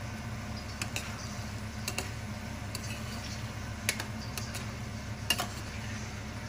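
Metal spoon stirring thick tomato and minced pork sauce in a stainless steel pan, with scattered sharp clicks as the spoon knocks and scrapes the pan. A steady low hum runs underneath.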